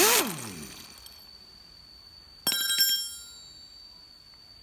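A loud sound gliding down in pitch right at the start, then about two and a half seconds in a quick cluster of ringing metallic clinks: steel spanner and socket wrench knocking on the concrete mixer's pinion gear and its housing.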